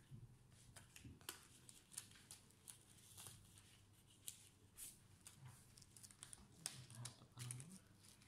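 Faint scattered clicks, taps and rustles of hands handling a laptop screen assembly: a strip of adhesive tape with its paper backing, the plastic bezel and the metal hinge.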